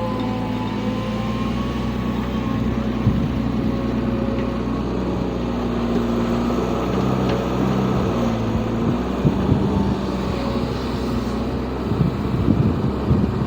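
Diesel engine of an excavator running steadily with a pitched hum, with irregular knocks and clatter near the end.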